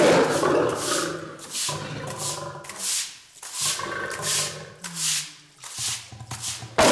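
Stiff push broom scrubbing a wet concrete floor in repeated scraping strokes, about two a second. Underneath, a nervous lioness with newborn cubs growls low from her cage, and near the end there is a louder snarl.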